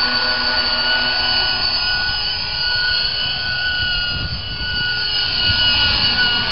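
Radio-controlled 500-class helicopter with a six-blade fenestron tail rotor in flight: a steady high whine of motor and rotors, with a slight dip in level about four seconds in.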